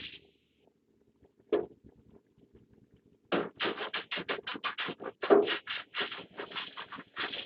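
Rapid back-and-forth scraping strokes on a panel, about five a second, starting about three seconds in, after a single knock about a second and a half in.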